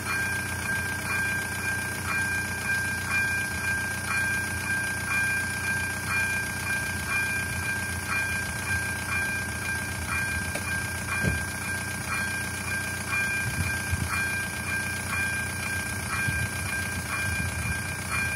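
Railway level crossing's electronic warning bell ringing, a steady high tone pulsing in a regular repeating beat while the barriers are down, warning of an approaching train. Low rumbling thumps come in during the second half.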